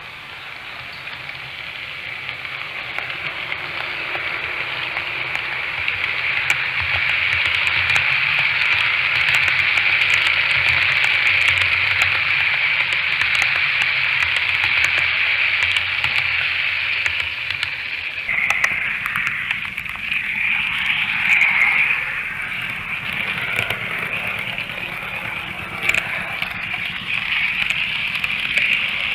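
Model train running along the layout's track: a steady rolling rasp that grows louder over the first several seconds, with fine clicks along the way. The sound changes abruptly about eighteen seconds in.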